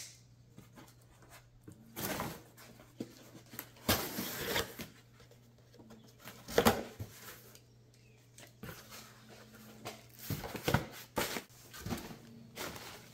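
Cardboard shipping box being opened by hand: a knife slitting the packing tape, and the flaps and box being handled. The sound comes in several short scraping and rustling bursts with quiet between them.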